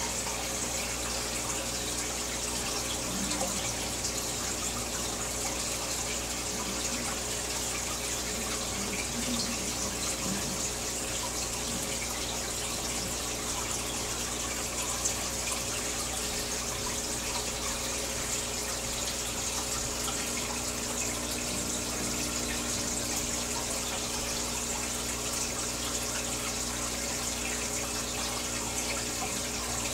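Aquarium bubbler and filter running, a steady rush of bubbling, splashing water with a faint steady hum underneath.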